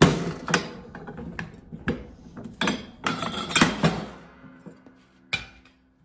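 A heavy slide hammer driven hard onto a wooden 4x4 block resting on a steel John Deere 42-inch mower deck: about ten blows in quick succession over some four seconds, then one more near the end, with the steel deck ringing after the strikes. The blows are flattening a spot where the deck was bent up by a blade strike.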